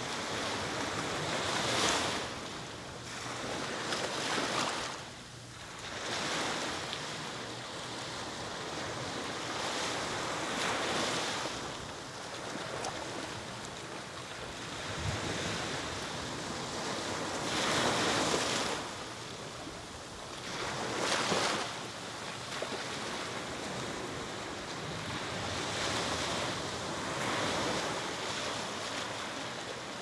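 Ocean surf breaking on a beach: a steady rushing wash that swells with each wave coming in, every few seconds.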